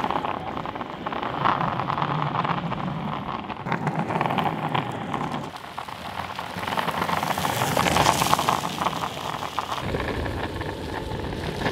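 Skateboard wheels rolling over rough pavement and gravel path, a continuous rolling noise that swells and eases as the board moves.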